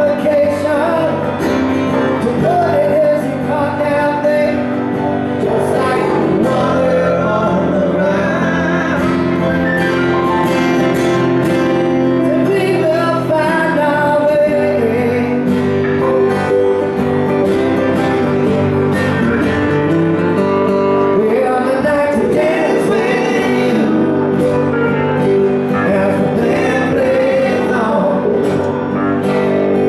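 Live acoustic song: two acoustic guitars strumming and picking chords while a man sings the melody.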